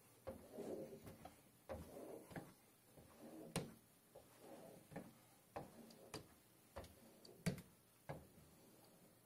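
Faint squeegee strokes over wet window film on glass: soft rubbing passes broken by about ten sharp little taps as the squeegee meets and leaves the edge of the pane.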